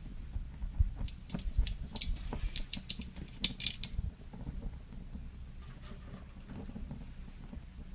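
Charcoal being lit in a grill: a quick run of sharp clicks and crackles about one to four seconds in, then only faint scattered crackling.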